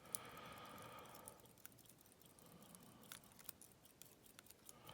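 Near silence broken by faint, scattered small clicks and ticks of the steel pin springs and pins being handled and pulled from a Schlage lock core.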